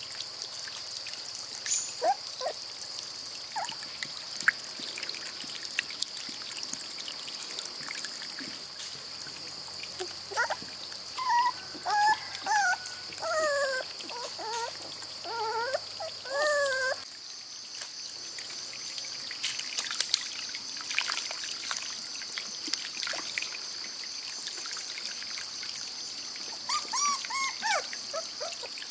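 Bouts of short, wavering whines from a puppy, one series in the middle and another near the end, over a steady high-pitched drone and scattered small clicks.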